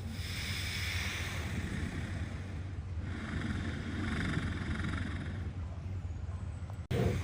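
Sleeping walrus snoring: slow, long, noisy breaths lasting about three seconds each over a steady low rumble. The sound cuts off sharply near the end and then starts again.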